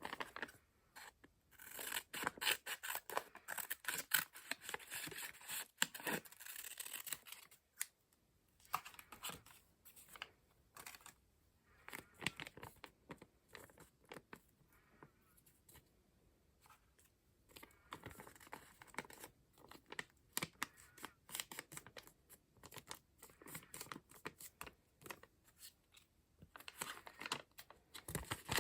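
Scissors cutting paper: irregular runs of short crisp snips and paper rustle, broken by brief pauses.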